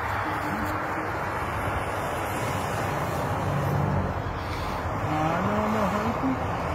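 Road traffic passing on a highway below, a steady rush of car noise mixed with wind on the microphone. A short wavering pitched sound rises and falls a little after five seconds in.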